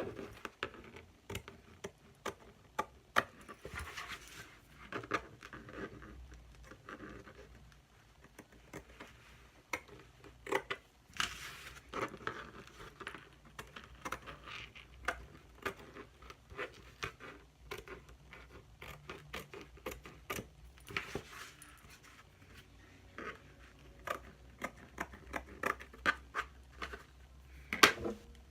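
Handwork on a fly-screen lid: irregular clicks, taps and scraping with some rustling, over a faint low hum.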